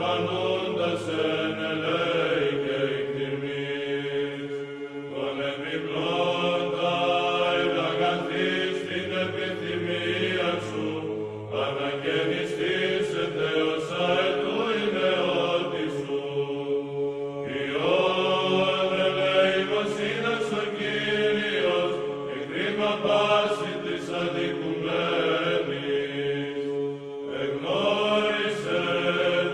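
Greek Orthodox Byzantine chant: slow, drawn-out voices singing a liturgical hymn over a low held drone, in long phrases that break every few seconds.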